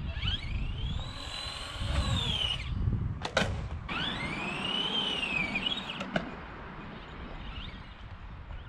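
Arrma Granite 4x4 Mega RC truck's brushed electric motor and drivetrain whining, rising in pitch as it speeds up and falling as it slows, twice. A sharp knock comes between the two runs and another at the end of the second.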